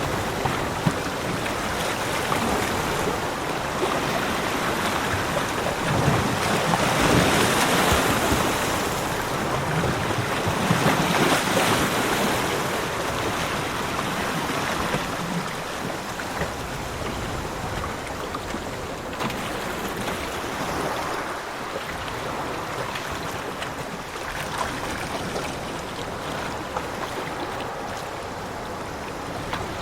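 Sea surf washing on a beach: a steady rush of waves that swells louder twice in the first half, then settles into a softer wash.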